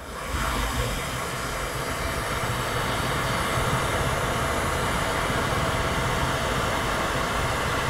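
Glassworking bench torch flame running with a steady hiss over a low rumble, coming up just after the start and holding even.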